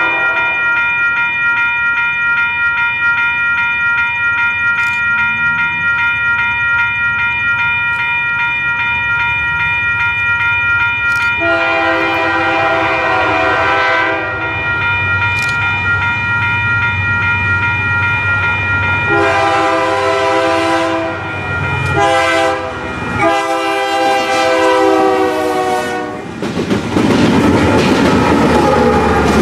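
Railroad crossing bell ringing steadily while an approaching freight locomotive's air horn sounds the grade-crossing signal: two long blasts, a short one and a long one, starting about a third of the way in. Near the end the locomotives pass close by with a loud rush of engine and wheel noise.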